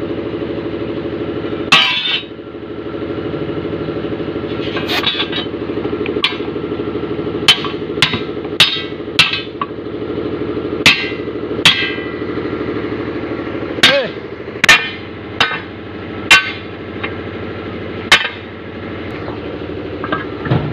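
Air compressor running steadily while a dumper tyre is inflated toward 160 psi through a hose on its valve. Sharp clicks come every second or so over the drone, most of them in the middle of the stretch.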